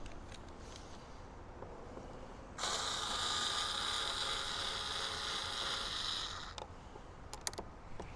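Small cordless electric screwdriver running for about four seconds, backing out a screw from the charger's cover, followed by a few small clicks.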